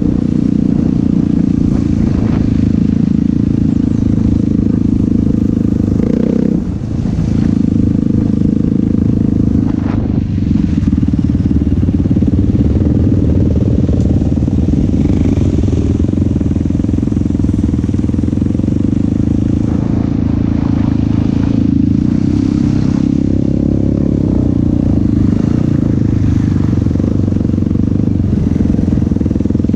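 ATV engine running hard and continuously, with a brief drop in revs about six and a half seconds in, and a few knocks and clatters from the machine over rough ground.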